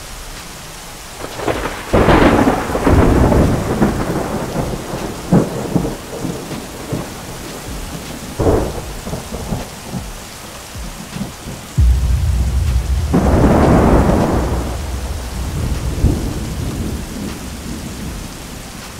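Steady rain with rolling thunder: a long roll about two seconds in, a short clap around the middle, and another long roll that starts suddenly about twelve seconds in and fades away.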